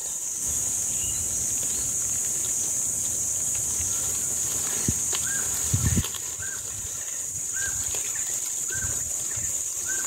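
Steady high-pitched insect drone, with a bird repeating a short call about once a second from around the middle. Two dull thumps come just before the middle.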